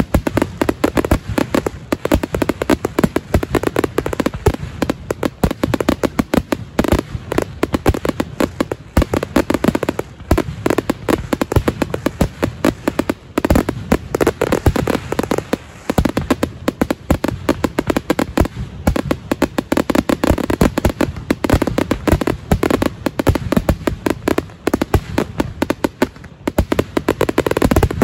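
Dense, unbroken barrage of firework rockets (foguetes) going off, sharp overlapping bangs and cracks several a second: the closing barrage (remate final) of a Portuguese fireworks display.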